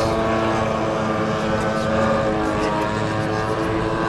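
Engine and propeller of a giant-scale aerobatic RC model plane in flight, a steady drone.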